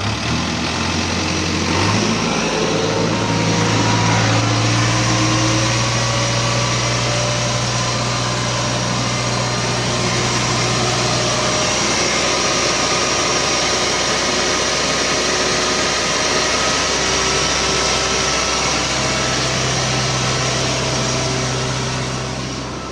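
JCB 3DX backhoe loader's diesel engine revving up about two seconds in as the machine pulls away in second gear. It then runs steadily at high revs under way and eases off near the end.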